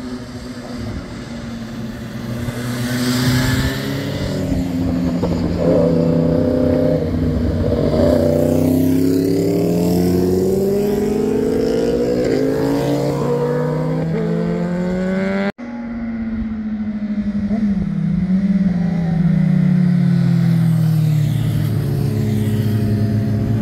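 Motorcycle engines accelerating through a hairpin bend and passing by, the engine note climbing and falling as the riders work the throttle and shift gears. An abrupt cut about two-thirds of the way through, then another motorcycle's engine note falling steadily as it comes on.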